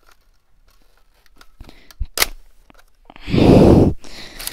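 Small plastic clicks and rattles of a toy Nerf blaster being handled while its darts are loaded, with one sharper click about two seconds in. A short, loud rush of noise follows a little past three seconds.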